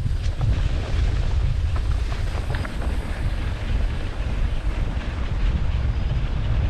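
Wind buffeting the microphone: a loud, gusty low rumble, with a few faint ticks above it.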